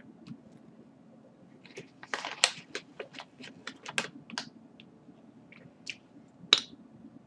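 Computer keyboard keys clicking: a quick irregular run of keystrokes about two seconds in, then a few scattered clicks, one sharp click near the end.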